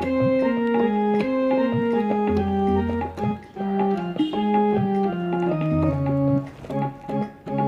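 Electronic keyboard playing the instrumental introduction to a devotional song: a melody of held, sustained notes stepping from pitch to pitch, with low bass notes coming in under it.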